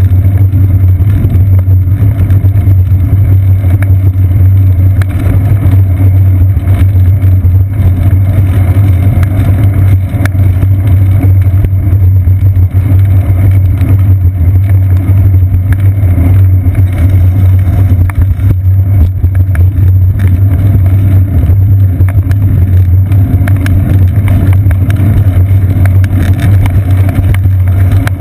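Steady, loud low rumble of road vibration and wind picked up by a seat-post-mounted GoPro Hero 2 in its housing as the bicycle rolls along wet pavement.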